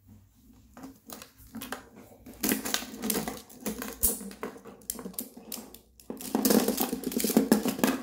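Plastic magnetic building tiles clicking and clattering as they are picked up, stacked and snapped together, a quick run of irregular clicks that grows denser and louder near the end.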